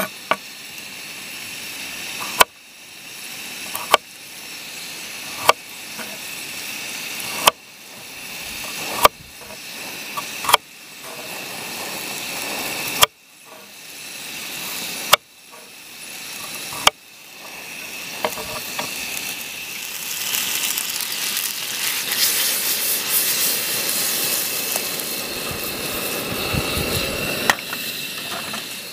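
A knife cutting a carrot on a wooden chopping board, about nine sharp knocks every one and a half to two seconds. About two-thirds of the way in, sliced potatoes and onions sizzle as they fry in a pan on a portable gas stove, a steady hiss that lasts to the end.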